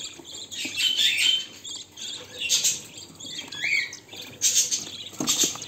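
Parrot nestlings in a nest box giving short, thin squeaky chirps, one of them rising. Between the chirps comes the scratchy rustle of the wood-shavings bedding being stirred as a chick is set back in.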